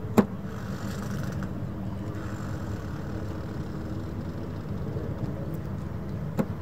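Steady low engine rumble with faint held tones, with a sharp click about a fifth of a second in and a smaller one near the end.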